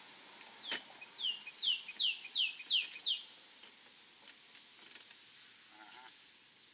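A songbird singing a run of about six clear whistled notes, each slurring sharply downward, roughly three a second, after one sharp opening note.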